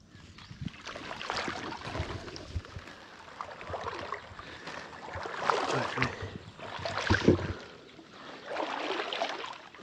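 Someone wading through shallow flooded rice-paddy water: swishing and splashing with each stride, in uneven swells about a second or two apart, with a few dull thuds.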